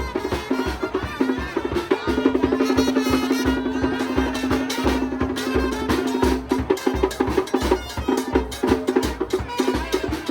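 Music with a fast, driving drum and percussion beat and a deep bass drum pulse.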